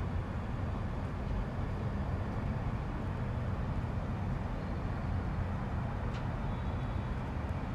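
Night-time outdoor ambience carrying the steady low rumble of an airplane in the distance, with a couple of faint ticks late on.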